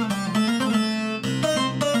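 Sampled Middle Eastern plucked-string instrument playing a melody of short, quickly changing notes over a steady low drone.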